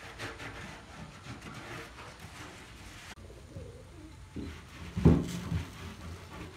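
A pigeon cooing low, a short coo about four and a half seconds in and a louder, longer coo just after five seconds.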